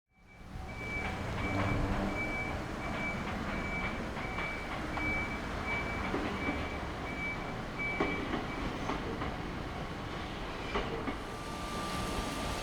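Japanese level crossing alarm beeping in rapid pulses, about two a second, over the rumble of a passing Choshi Electric Railway 2000-series train, with scattered clicks of wheels over rail joints. The alarm stops about eight and a half seconds in as the train runs on, and a steady high tone comes in near the end.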